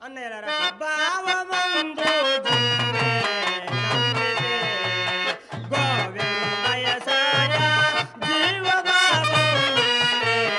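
Telugu stage-drama accompaniment music led by a reedy harmonium melody over a repeating pattern of low drum beats, breaking in suddenly.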